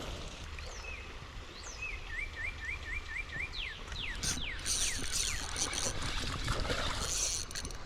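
A songbird sings a quick run of about six short repeated chirps, followed by several fast downward-slurred notes, over a steady low outdoor rumble of wind and moving water. A few short noisy rushes come in the second half.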